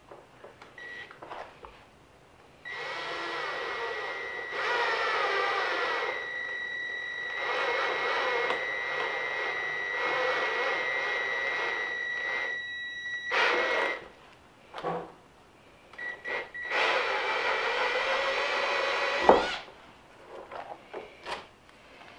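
Cordless drill with a 1/4-inch bit boring through holes in a toboggan's base and crossbar: a long run of about eleven seconds with a steady motor whine that dips and picks up again, then a second, shorter run of about three seconds. Light handling clicks and knocks fall between the runs.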